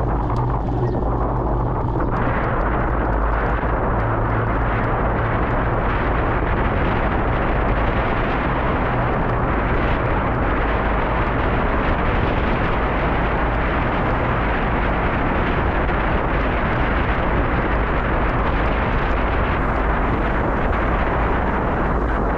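Wind buffeting the microphone of a camera on a moving bicycle: a loud, steady rumble and rush with no break, turning harsher about two seconds in.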